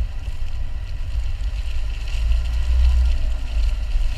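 Mini Cooper S Countryman ALL4 driving across wet, muddy grass, heard through a camera mounted low on the bodywork beside the front wheel. The tyres, engine and wind on the microphone make a heavy, steady low rumble that swells a little about two to three seconds in.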